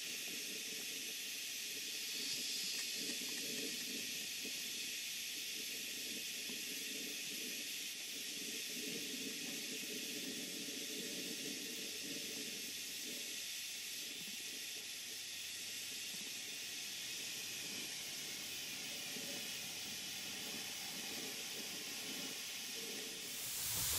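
Stuart Major Beam model steam engine running on steam, heard as a steady soft hiss of escaping steam. The exhaust beat is barely audible because the engine runs so precisely and quietly.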